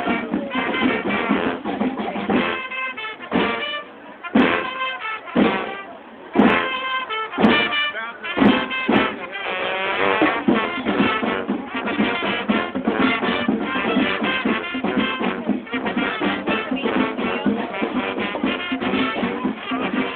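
Brass street band (sousaphone, horns and drums) playing a calypso tune live. Between about two and nine seconds in, the band hits a run of short separate stabs with gaps between them, then goes back to full continuous playing.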